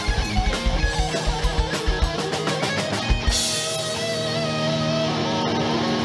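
Live heavy metal played by a band: distorted electric guitar over fast, even kick-drum beats, which stop after about two seconds. A little after three seconds comes a bright final hit, then a held, ringing chord.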